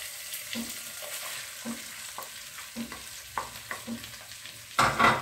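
A wooden spatula stirring and scraping sauced chicken frying in a non-stick pot, in short strokes about twice a second over a faint sizzle. Near the end comes a louder scraping clatter as sliced onions are pushed out of a bowl into the pot.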